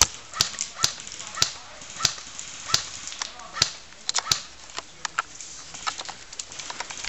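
Airsoft gunfire: a string of sharp single cracks at irregular intervals, roughly one every half second to a second, the loudest at the very start.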